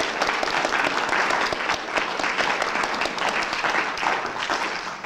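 Audience applauding: many hands clapping steadily, thinning a little near the end.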